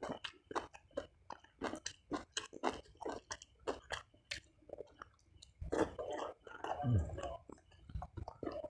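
Close-up mouth chewing of fried tempe and rice, a run of short clicking mouth sounds about three a second. Around six to seven seconds in there is a louder stretch with a low sound falling in pitch.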